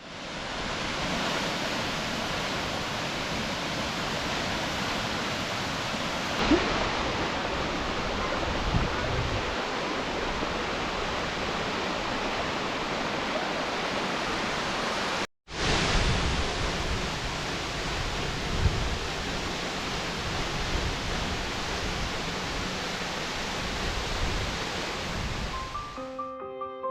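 Toccoa Falls, a tall waterfall, giving a steady rushing roar of falling water, cut off for a moment about halfway through. Piano music comes in at the very end.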